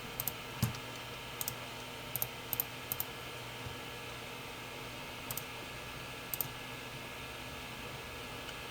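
Computer mouse clicking: several quick double clicks spread over the first six or so seconds, over a steady hum.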